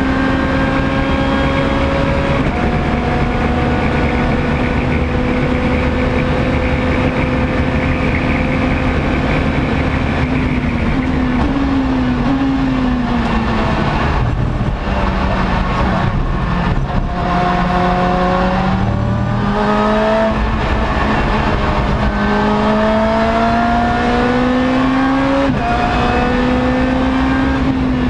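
Lotus race car engine heard from inside the cockpit, held at high revs along a straight, then blipped through quick downshifts into a corner and accelerating hard again, its pitch climbing and dropping at each upshift.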